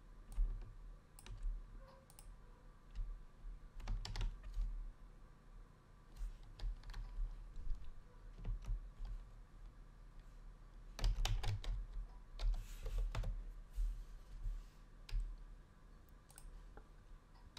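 Computer keyboard keys and mouse buttons clicking in short, scattered bursts, busiest about four seconds in and again around eleven to thirteen seconds in.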